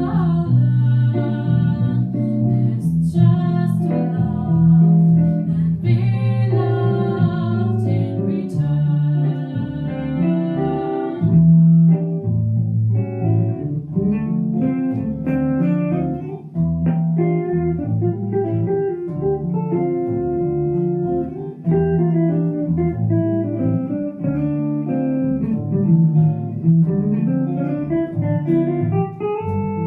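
Small jazz ensemble playing live, with guitar and bass to the fore.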